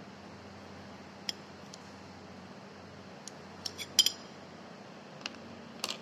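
Kitchen knife slicing a cucumber on a plate: scattered sharp clicks of the blade striking the plate, the loudest cluster a little past the middle, over a faint steady hum.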